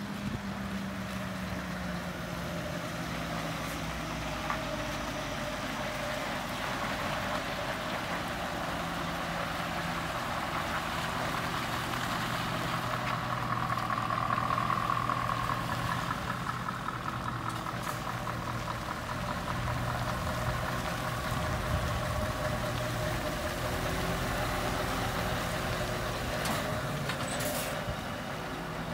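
Scania R580 truck's V8 diesel engine running as the heavy tipper manoeuvres slowly, growing louder about halfway through as the truck comes closest, with a few short sharp sounds in the second half.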